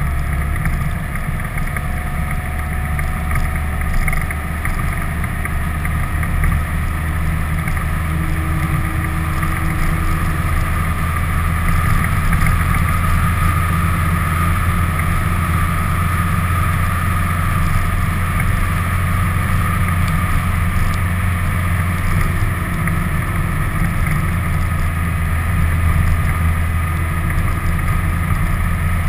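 Steady low drone of a vehicle under way, engine and road noise, with a little wind on the microphone.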